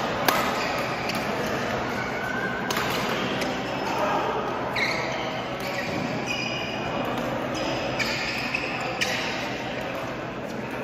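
Badminton rackets striking a shuttlecock with sharp cracks, the loudest hit just after the start and further hits scattered through, echoing in a large hall. Short squeaks, typical of court shoes on the mat, and voices sound alongside.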